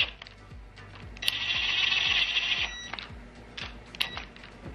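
A ratchet on a long socket extension running down the camshaft bearing-cap bolts of a Toyota 2JZ cylinder head, snugging them before the torque pass: a burst of rapid ratcheting of about a second and a half, starting about a second in, and a short knock near the end. Soft background music with a steady beat underneath.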